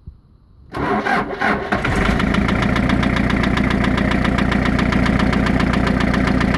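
A 3-litre car engine cranks and catches about a second in, then settles into a steady idle with a fast, even knock. By the owner's account the knock is still there after the bearing shells were replaced.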